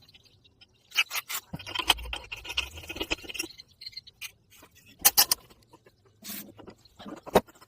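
Handwork on a hard object: sharp clicks and knocks, with a stretch of rough scrubbing or scraping in between.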